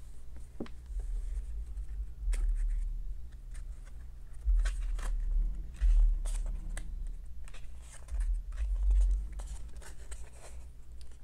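Pages of a paperback book being opened and turned, with papery rustles and small clicks, and several dull low thuds from the book being handled.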